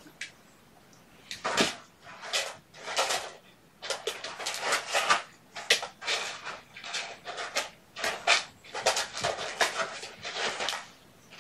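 A congested kitten crying in a string of short, noisy calls, about one a second, while it is held for cleaning of its infected eyes.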